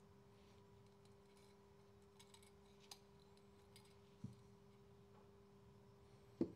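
Quiet, sparse clicks of small metal brake master cylinder parts being handled and fitted into the cylinder bore, with a soft knock about four seconds in and a sharper double clack at the end. A steady hum runs underneath.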